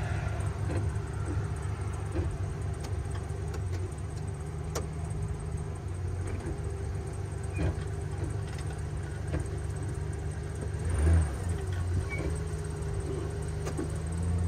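2002 Ford Ranger's engine idling steadily, with a few light clicks and one louder thump about eleven seconds in.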